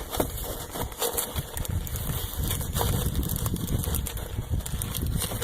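Handling of first-aid supplies: packets and wrappers rustling and clicking over a steady low rumble.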